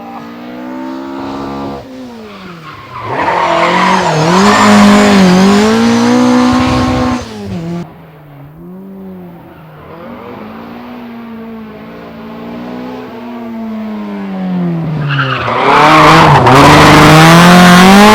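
Rally car engine revving hard on a stage, its pitch dropping and climbing again and again through lifts and gear changes. It swells loud twice, about three seconds in and again near the end, and cuts off abruptly in between.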